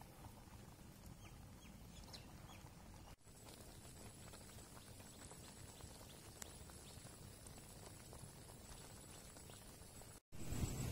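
Faint simmering of a large pot of rat meat: a low rumble with scattered small pops. The sound drops out briefly twice.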